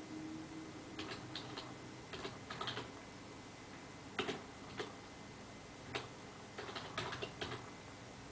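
Computer keyboard keys being typed, a string of sharp clicks in short irregular runs with pauses between, typing a two-word search query.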